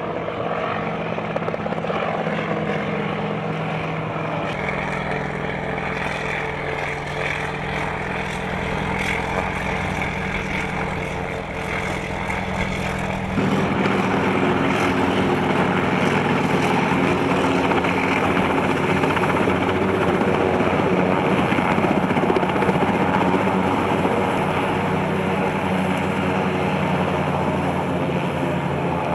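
Sikorsky UH-34D Seahorse helicopter hovering and setting down, its Wright R-1820 nine-cylinder radial piston engine and main rotor running steadily throughout. The sound steps up louder about halfway through and holds there.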